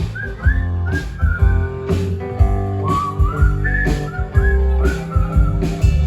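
Whistled melody in short rising, swooping phrases over a band of guitar, bass and drums playing an instrumental break.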